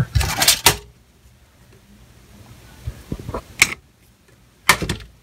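A few brief rustles and clicks, with quiet stretches between them: a short rustle at the start, a single click in the middle and another short rustle near the end.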